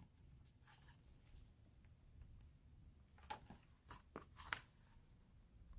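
Near silence with faint rustles and soft taps of a hardcover picture book being opened and its paper pages turned, several of them about three to four and a half seconds in.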